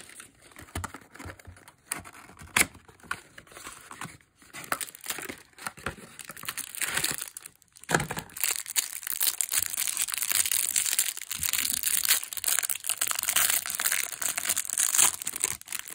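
Clear plastic wrapper around a stack of Topps baseball cards crinkling as it is torn open. Scattered handling clicks come first, then dense, continuous crinkling from about halfway.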